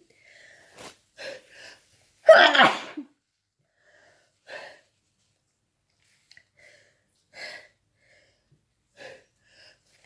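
A person sneezing once, loudly and explosively, about two seconds in, as part of a sneezing fit while sick. A few faint short breath sounds come before it and a few sparse ones after.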